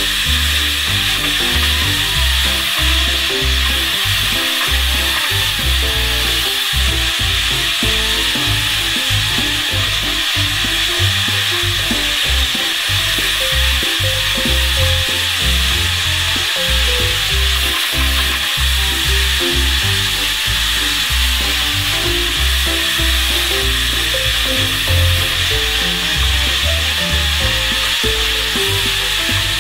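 Car road and cabin noise played back at ten times speed, which turns it into a steady high sizzling hiss, with background music of short stepping notes underneath.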